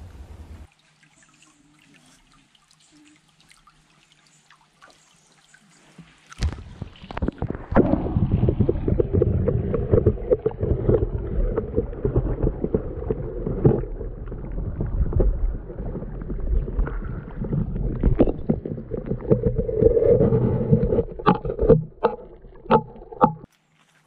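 Flowing stream water heard from under the surface: a muffled, low rushing and gurgling with many small knocks and clicks. It starts suddenly about six seconds in after near silence, and cuts off abruptly just before the end, after a few sharper clicks.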